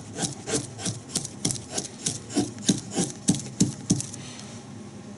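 Knife blade shaving thin curls off a stick of soft pine for a feather stick, in quick short scraping strokes about three a second, stopping about four seconds in.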